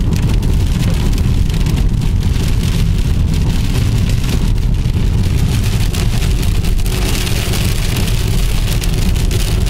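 Heavy rain pattering on a moving car over a steady rumble of road and engine noise, with a brighter hiss for a couple of seconds near the end.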